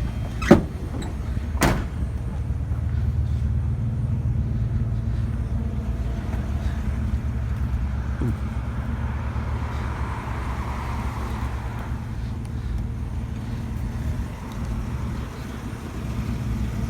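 Steady low rumble of a running vehicle, with two sharp knocks near the start, the first one louder.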